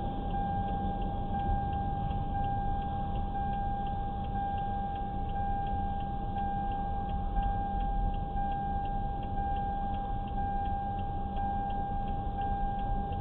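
Car's electronic warning tone sounding steadily, with regular ticking about twice a second, like a flasher relay, heard inside a stopped car's cabin over a low steady rumble.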